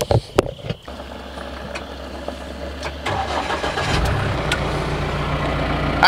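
A side-by-side UTV's engine starts, with a few clicks and knocks in the first second, then runs steadily, growing louder as it pulls away.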